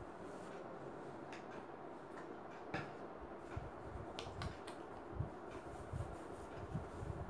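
Fingers rubbing and working through long hair at the scalp: soft rustling with a few sharp clicks, over a steady background hiss. From about three seconds in come short low bumps, several a second apart.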